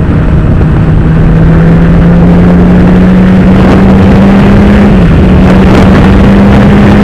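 Honda CB1000R's inline-four engine with an Akrapovic slip-on exhaust, running hard while riding, its tone creeping slowly upward and dipping briefly about five seconds in. Heavy wind noise on the helmet microphone sits over it.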